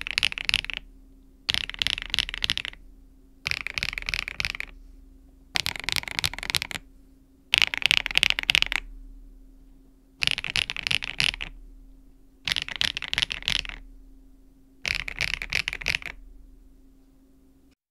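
Mechanical keyboard with HMX Violet factory-lubed linear switches and PBT keycaps, typed in quick bursts of rapid keystrokes. Each burst lasts about a second, and they repeat roughly every two seconds, seven times.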